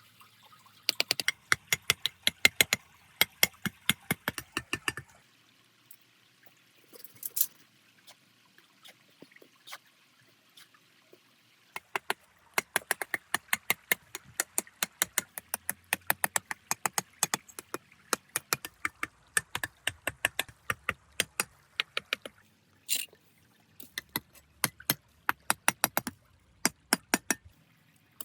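Runs of rapid sharp taps or clicks, about six a second, each run lasting several seconds with quiet pauses between.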